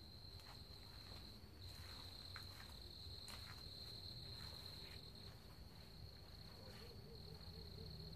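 Faint, steady, high-pitched chorus of night insects trilling without pause, with a few soft footsteps in the grass.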